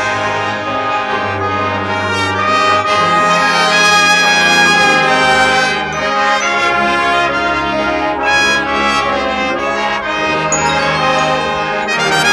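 Junior high school marching band playing, its brass section carrying loud sustained chords that shift every second or two.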